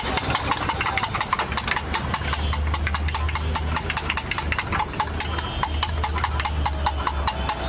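Metal spoon beating an egg mixture in a small steel bowl: rapid clinking strikes, several a second, over a steady low hum.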